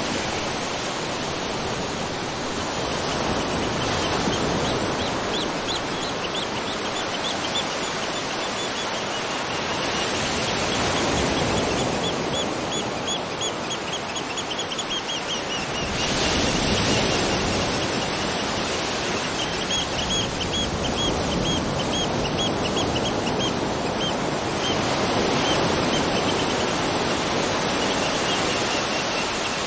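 Waterfall rushing steadily, with runs of fast, high, evenly repeated chirps from a bird or insect over it, each run lasting several seconds.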